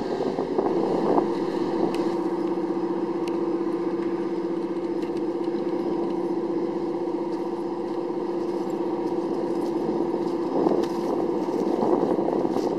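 LARC amphibious vehicle's diesel engine running at a steady, unchanging drone as it motors through shallow water toward the beach.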